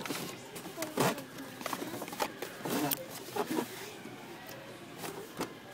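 Busy store background: faint distant voices with scattered knocks and clatter.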